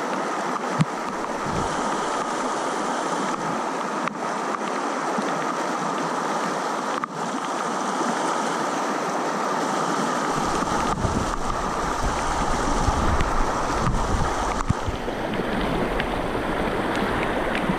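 Shallow whitewater river rushing steadily over rocks and through a logjam of branches, heard close at water level. A low rumble joins the rush of water about ten seconds in.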